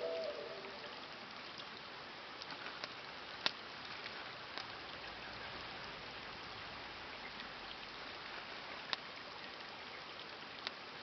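Steady rain falling, an even hiss, with a few sharp drip-like ticks, the clearest a third of the way in and again near the end.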